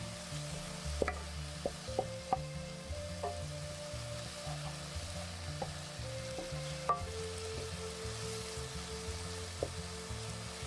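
Vegetables sizzling in a frying pan as they are stirred, with a scatter of sharp clicks of the utensil against the pan and background music underneath.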